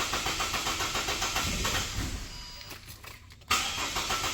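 2006 Ford Falcon engine being cranked on the starter with starting fluid in the intake, turning over rhythmically and trying to start without catching; the sound dies down about two seconds in and the cranking comes back suddenly at full level about a second later. It fires only on the starting fluid, pointing probably to a fuel-related fault.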